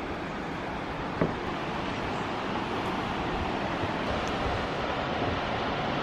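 Steady rushing of the Mynach Falls waterfall dropping down its ravine, with a single sharp knock about a second in.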